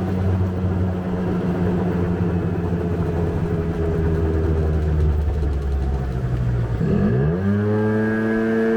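Small engine with a rebuilt cylinder and piston and low compression, running at a steady low idle, then revved about seven seconds in: the pitch dips briefly, climbs quickly, and holds at a higher, steady speed.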